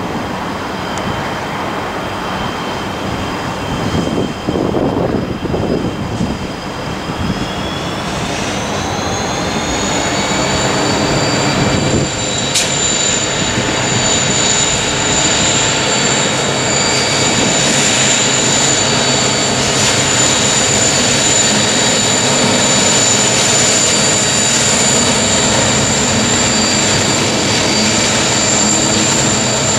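Loaded coal train's lead 90 class diesel locomotives working past, engines running with a high whine that rises in pitch about eight to ten seconds in and then holds steady. Wind buffets the microphone in the first few seconds.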